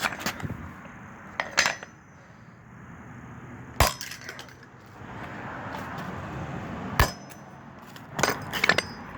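A hammer striking a toy car in sharp, irregular blows a second or more apart, some leaving a short high metallic ring, with a quick run of knocks near the end.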